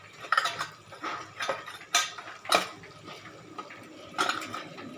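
Metal kitchen utensils clinking and tapping, about seven sharp, irregular clinks, as spices are spooned into the cooking pan.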